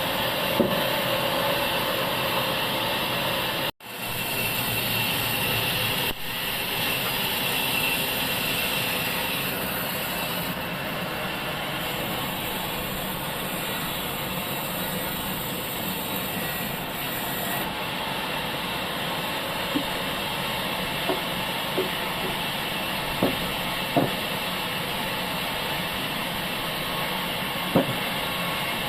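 Sawmill machinery running steadily with a continuous mechanical drone. The sound drops out briefly about four seconds in, and there are several sharp knocks in the second half.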